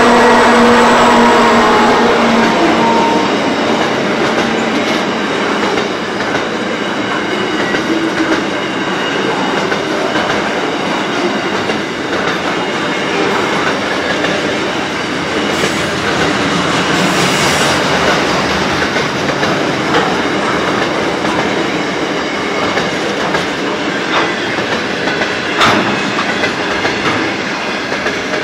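A long freight train passing close by. The hum of a G-class diesel-electric locomotive fades in the first few seconds, then loaded steel and container wagons keep rolling past with a steady rumble and clickety-clack of wheels over the rail joints, broken by an occasional sharp clank.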